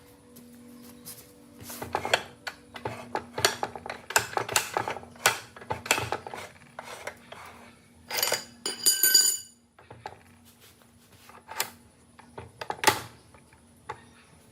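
Metal parts and hand tools clinking, tapping and knocking in a quick irregular series, with a ringing metallic clang near the middle, over a faint steady hum.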